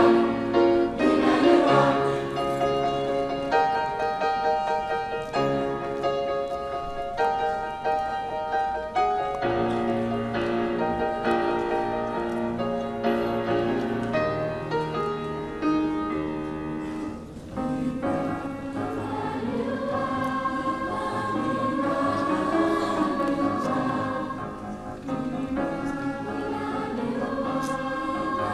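Mixed choir of high school singers, men and women, singing together, holding chords that change every second or two. Just past halfway there is a brief dip, after which the voices move in a more flowing, wavering line.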